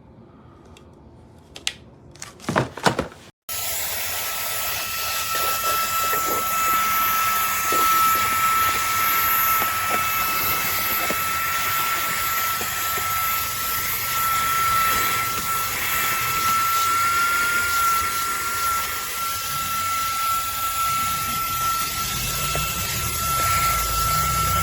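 A few clicks. About three and a half seconds in, the Fanttik Slim V8 Apex cordless handheld vacuum starts up, its motor running steadily with a high whine over rushing air.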